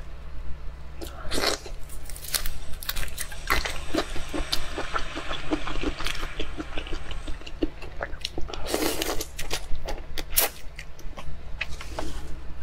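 Close-miked eating sounds of soy-sauce-marinated shrimp: shells cracked and pulled apart by hand with wet crackling and clicking, mixed with chewing, over a steady low hum.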